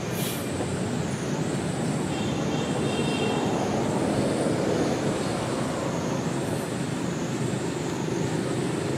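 Steady outdoor background rumble, like distant traffic, with a thin high tone wavering up and down about once a second.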